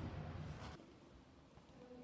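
Faint steady outdoor background noise that cuts off abruptly under a second in, leaving quiet indoor room tone.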